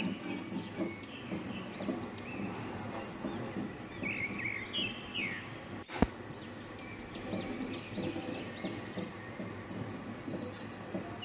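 Small birds chirping in the background, short high chirps scattered throughout, over a faint low hum of kitchen noise. A single sharp click about six seconds in.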